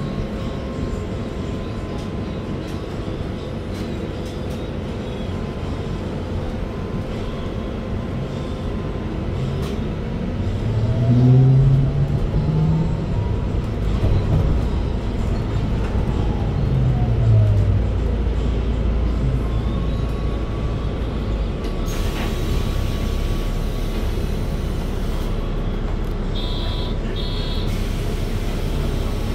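Cabin sound of a MAN Lion's City Hybrid city bus on the move: a thin electric-drive whine rises in pitch as the bus speeds up, then falls as it slows, over a steady low rumble. Two short high beeps near the end.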